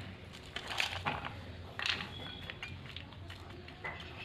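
A few faint clinks and scrapes of a kitchen utensil against a dish, spaced irregularly about a second apart, one with a brief ring.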